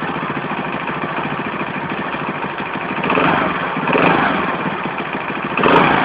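Alpha moped's small single-cylinder four-stroke engine idling with an even rapid beat, then revved briefly three times in the second half. The owner hears an unidentified knock in the engine that is most noticeable on these blips of the throttle.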